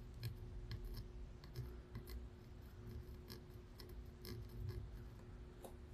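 Faint, irregular small ticks and scratches of a soldering iron tip working solder onto the pins of a USB-C charge port, over a steady low hum.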